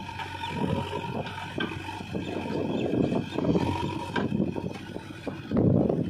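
Diesel engine of a JCB 3DX backhoe loader running and working the hydraulics as the backhoe bucket dumps soil into a tractor trolley and the arm swings back. The engine note rises and falls, with a louder surge near the end.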